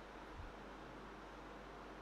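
Faint steady room hiss, with a single soft, low knock about half a second in.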